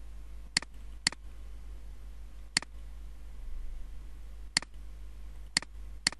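Computer mouse button clicking: six single clicks spaced irregularly, as files are chosen in a dialog.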